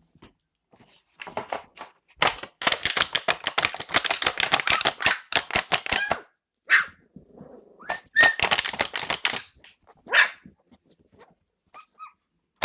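A rapid clattering rattle of many sharp clicks a second, in two long bursts, made as a test noise for very young Australian Cattle Dog puppies. Short high puppy squeals come in between the bursts.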